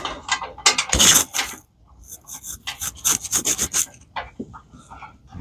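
Rapid rasping, scraping strokes in bursts, loudest about a second in and again from around three seconds in, from hand work on the truck's battery cable hardware.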